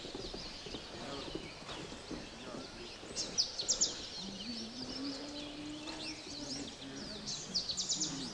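Wild birds calling and chirping, with two bouts of sharp rapid notes, about three seconds in and again near the end, loudest of all. A low drawn-out tone rises and falls in the middle.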